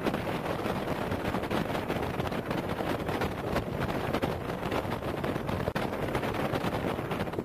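Wind buffeting the microphone: a steady, uneven rushing noise with no clear tone in it.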